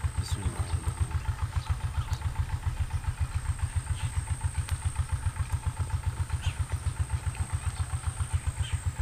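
An engine running steadily with an even, low thudding of about six beats a second, and a thin, high steady whine above it.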